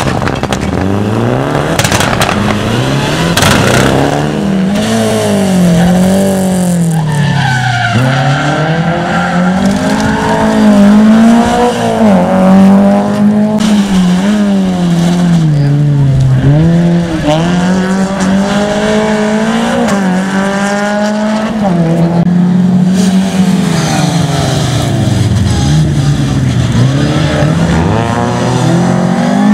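Rally cars at full throttle on a tarmac sprint course, engines revving hard and dropping back again and again as they shift and brake for the corners, with tyre squeal.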